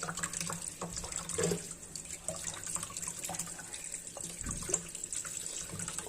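Water running from a tap as small oregano leaves are washed under it, with irregular small splashes and drips.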